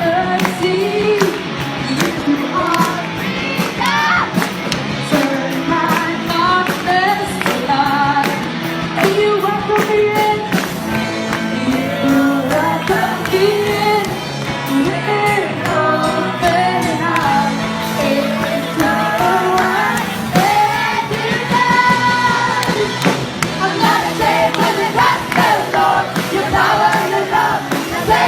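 A band playing a song with drums and bass while vocalists sing the melody.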